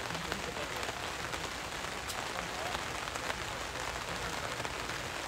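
Steady patter of light rain, a dense hiss of small drop clicks, with faint voices in the background.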